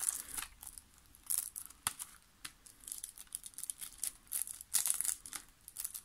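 Clear plastic wrapper crinkling and crackling in irregular bursts as fingers work it off a CD jewel case.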